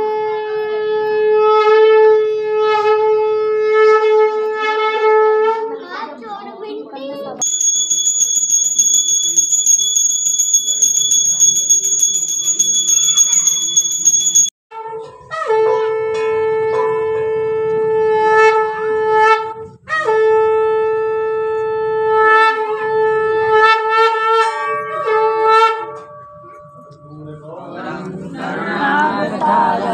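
Conch shell (shankh) blown in long, steady held blasts for aarti, the first lasting about six seconds. A steady high whistling tone sounds for about seven seconds in the middle, then the conch resumes in two more long blasts with a short break between them and ends with a couple of shorter, stepping notes.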